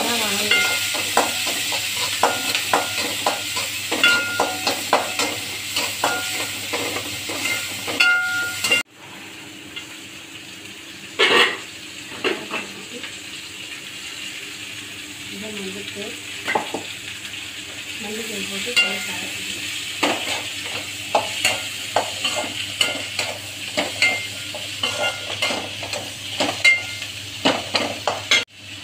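Metal spatula stirring and scraping in a metal kadai while onions and chopped flat beans (avarakkai) fry and sizzle in oil. Strokes come thick and fast at first, stop abruptly about 9 seconds in leaving a quieter sizzle with only a few scrapes, then pick up again for the last ten seconds.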